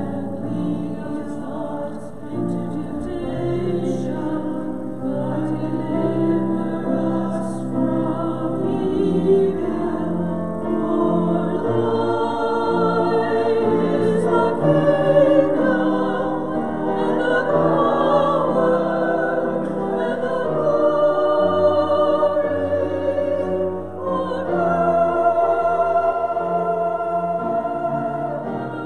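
Sacred vocal music: singing over steady instrumental accompaniment, the held bass notes changing every few seconds.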